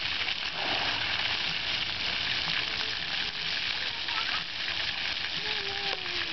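Splash-pad ground jets and fountains spraying and splashing onto wet pavement, a steady hiss.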